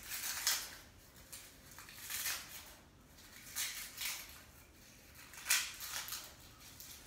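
Plastic bag crinkling as it is handled, in four short bursts about every second and a half.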